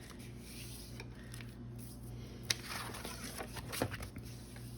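A glue spreader scraping and rubbing across a glued board-book page, with a couple of sharp ticks partway through.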